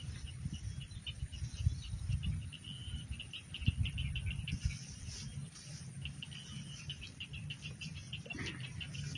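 Insects chirping in a rapid pulsing trill, in runs of a few seconds, over a low rumbling noise.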